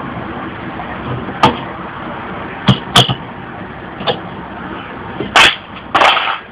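Sharp metal clinks and knocks, about six of them, as small metal stove parts are handled and set down on a table. A steady hiss runs under them and drops away at the end.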